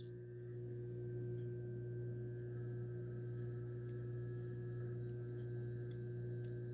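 A steady, faint hum made of a few constant tones, low and mid pitched, that cuts off suddenly near the end.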